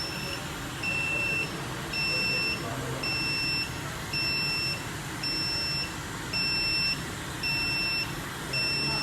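Electronic beeper sounding a steady high tone about once a second, each beep about half a second long, over a steady hiss.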